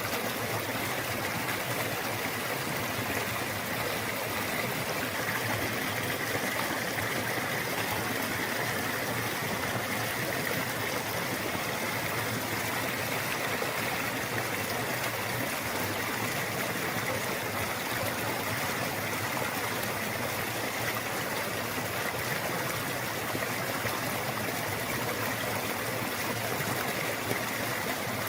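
Steady rushing noise like a flowing stream, even throughout with no breaks.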